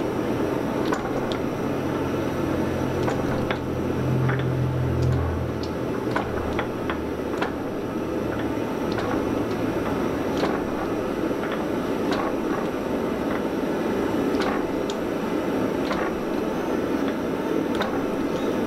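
Forging press running with a steady mechanical rumble as its die squeezes a glowing Damascus steel billet. Scattered sharp ticks sound through it, and a low hum drops out about six seconds in.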